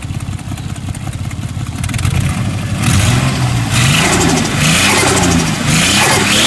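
Nissan RB25DET turbocharged straight-six idling, then revved up and down several times from about three seconds in. The owner says the engine has stuck valves and an exhaust leak.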